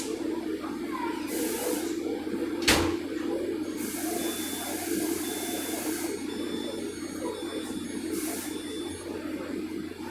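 Steady low hum inside a stationary passenger rail car, with three short bursts of hissing and one sharp knock about three seconds in.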